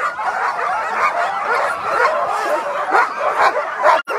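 A chorus of many Alaskan husky sled dogs barking and yelping at once, the excited din of teams fired up and waiting to run at a race start. The sound cuts out for an instant just before the end.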